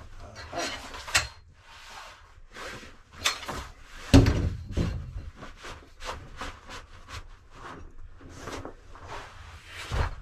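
Helinox lightweight camping cot being unpacked and laid out: its nylon fabric rustling and its parts knocking on the floor in short irregular bursts, with one heavier thump about four seconds in.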